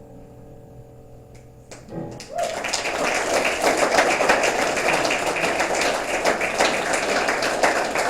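The final chord of the song rings and fades. About two seconds in, the audience breaks into loud applause that carries on steadily.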